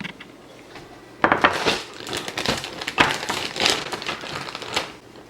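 Irregular crinkling and crunching, as of something crinkly being handled, starting about a second in.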